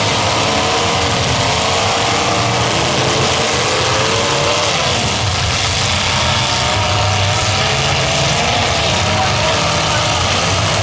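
Demolition derby cars' engines running over a steady wash of arena noise, their pitch wavering up and down as they rev.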